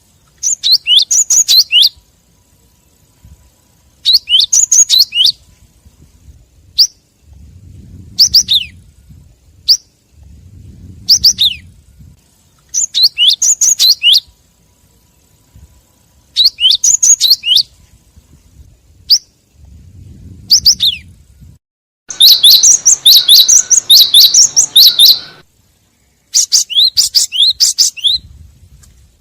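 Cinereous tit (gelatik batu) calling, played as a bird-lure call: quick runs of high, sharp, downward-sweeping chirps in phrases of about a second and a half, repeating every few seconds with single short notes between them. A longer, denser chatter of chirps comes near the end.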